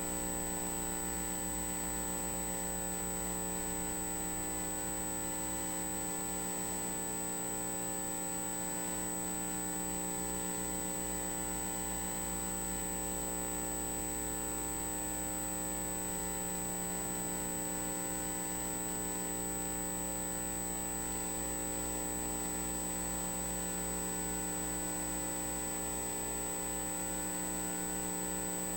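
Steady electrical hum from ultrasound equipment, many fixed tones layered with a high whine, unchanging throughout.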